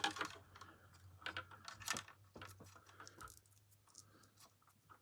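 Scattered light clicks and small rattles of tools, wire and small parts being handled on a workbench, over a faint steady low hum.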